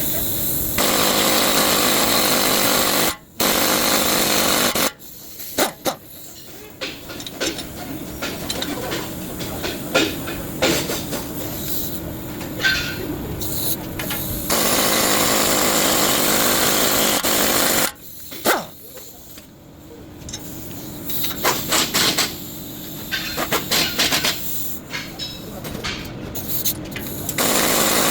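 A power tool runs in several long bursts, with tool clicks and knocks in the quieter gaps between them.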